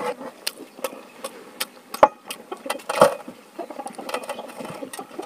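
Eating sounds by hand: fingers tapping and scraping scraps of food on a stainless steel plate, mixed with chewing. It comes as an irregular string of short clicks and taps, the loudest about two and three seconds in.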